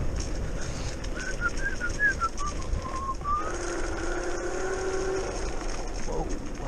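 Riding noise of an electric scooter on a path: wind rumbling on the microphone. A run of short whistle-like notes falls in pitch about a second in, then gives way to a steady whine, and a brief falling glide comes near the end.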